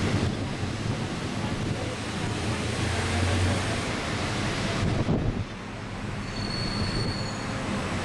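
Open-top tour bus driving along a city street: steady engine hum and road noise with wind across the microphone. About five seconds in the noise drops, and a brief, faint high squeal follows.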